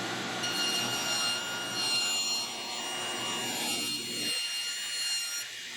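Electric power tool motor running at a steady speed with a high whine and a rushing noise, its lower rumble dropping away about four seconds in.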